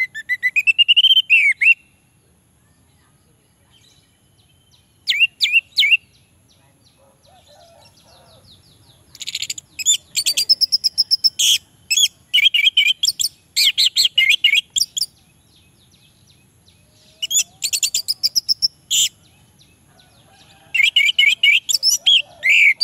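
Orange-headed thrush singing in five bursts of rapid, varied whistled phrases with short pauses between them, the longest run lasting about six seconds in the middle.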